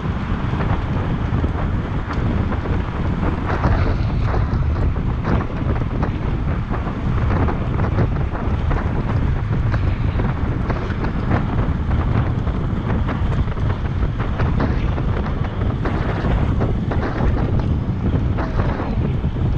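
Wind rushing over a moving camera's microphone at racing speed, a steady loud buffeting with many small clicks and rattles through it.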